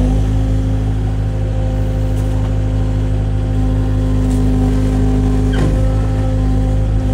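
Kubota excavator's diesel engine running steadily as heard inside its closed cab, with the hydraulics working as the machine is operated. The engine note strengthens a little from about halfway through, and a brief sharp sound comes a little after five and a half seconds in.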